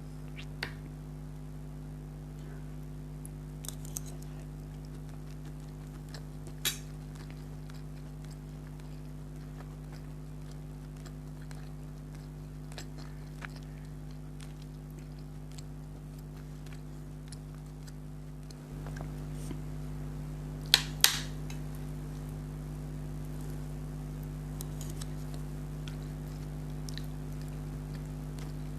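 Close-up eating sounds: a person chewing, with occasional sharp clicks and mouth smacks, the loudest a quick pair about two thirds of the way in, over a steady electrical hum that steps up slightly just before them.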